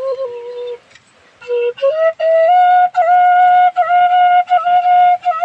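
Bansuri (bamboo flute) playing a slow melody: a low note that breaks off just under a second in, a brief pause, then a rise to a long held higher note with short breaks in it.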